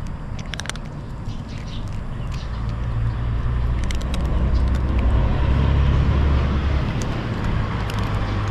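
A motor vehicle's engine running nearby, a low rumble that grows louder over the first several seconds and eases slightly near the end. Light, crisp clicks of a cat crunching dry kibble close to the microphone sound over it now and then.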